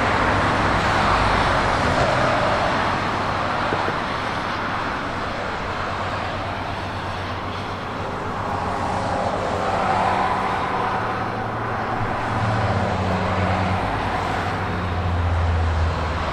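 Steady rumble of engines, with a low hum that grows louder near the end.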